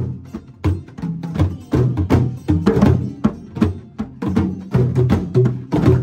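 Djembe hand drums played in a drum circle: a repeating rhythm of deep bass tones and sharp slaps, the pattern coming round about once a second.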